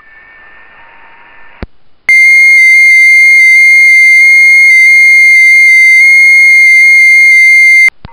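FT8 digital-mode audio from a ham radio transceiver: receiver hiss for about a second and a half, a click, then a loud, distorted single tone near 2 kHz that hops up and down in small pitch steps for about six seconds (the FT8 signal's frequency-shift keying), cutting off suddenly near the end.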